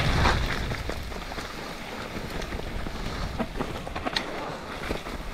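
Mountain bike rolling fast down a damp dirt-and-grass trail: tyre noise and wind rushing over the camera microphone, loudest at the start, with scattered clicks and rattles from the bike over bumps.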